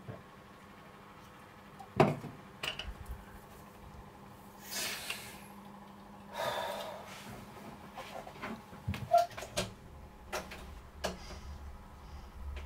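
Quiet room sounds of a person moving about: a sharp knock about two seconds in, two breathy rushes a little later, then a few clicks and a door being pushed open near the end.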